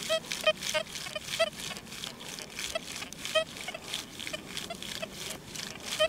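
XP Deus II metal detector on its sensitive full tone program, swept over a deep target: short, faint, broken blips of tone several times a second rather than a clean signal. To the operator's ear this response doesn't sound very good at all.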